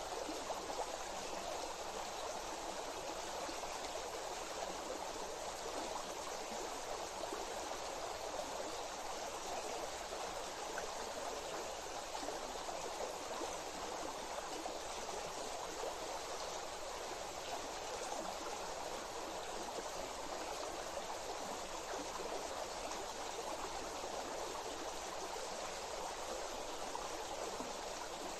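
Running water of a stream, a steady even rush with no breaks.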